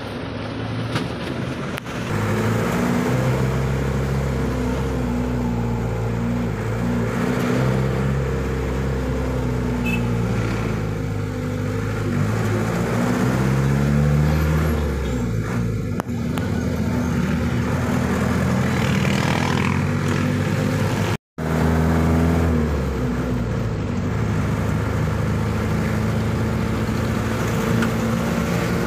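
Engine of the vehicle being ridden in, heard from inside, running under load as it drives along a road; its pitch rises as it accelerates and drops back at each gear change, several times over. The sound cuts out completely for a split second about two-thirds of the way through.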